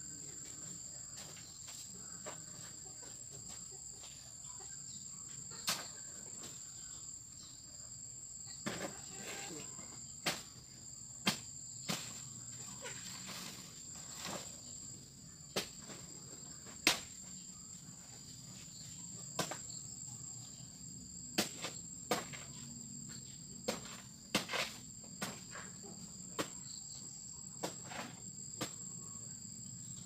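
Steady high-pitched trilling of insects, with sharp knocks and clicks at irregular intervals, one to three every couple of seconds.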